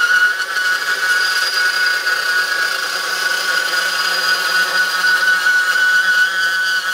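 Hercules 20V cordless brushless deep-cut band saw running at a steady speed, its blade cutting through 2.5-inch galvanized steel tube: a steady whine over the noise of the teeth in the metal.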